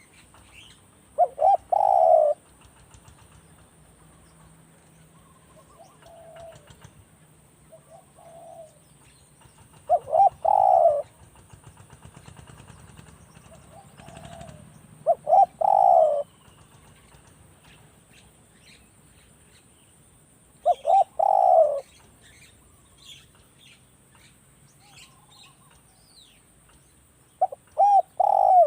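Spotted dove cooing: five loud phrases of a few short, falling coos, spaced about five or six seconds apart, with fainter answering coos in the gaps.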